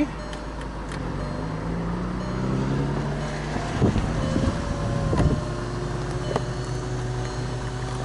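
Audi S5 cabriolet's power soft top running. Its pump or motor hum rises over the first few seconds and then holds steady, with a few clunks around four to five seconds in as the top's parts move.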